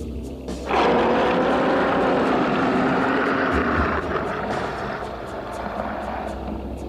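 Dinosaur roar sound effect for a Tyrannosaurus rex: one long, deep roar that starts suddenly just under a second in, is loudest for about three seconds, then drops to a lower rumble.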